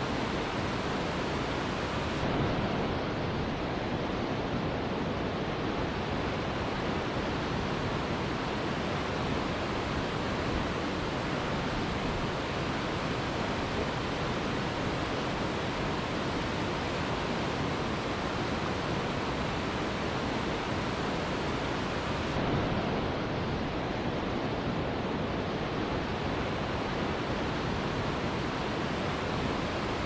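Waterfall: a steady, even rush of falling water with no music. A slight swell comes about two seconds in and again about twenty-two seconds in.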